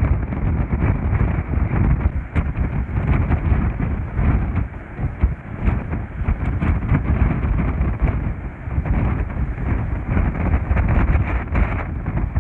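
Strong wind buffeting the microphone in uneven gusts: a loud low rumble with a rushing hiss over it.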